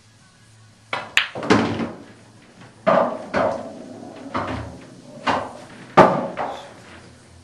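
Pool cue striking the cue ball, and the object ball dropping into the corner pocket, followed by a string of sharp knocks and thuds over the next five seconds, the loudest about six seconds in.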